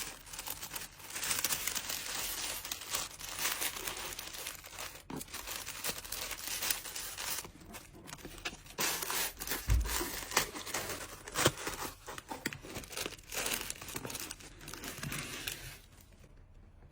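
Plastic packaging crinkling and rustling as a card order is packed by hand, with stretches that sound like tearing and scattered sharp taps. It dies down about a second before the end.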